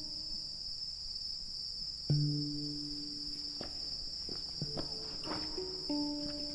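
Handpan played: several struck, ringing notes, the first and loudest about two seconds in, over a steady high trill of insects.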